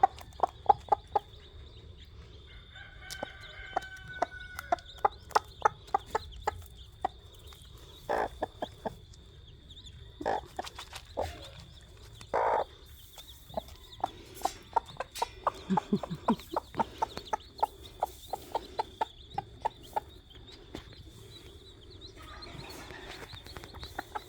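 Broody mother hen clucking in runs of short, quick clucks, with a few longer calls in between.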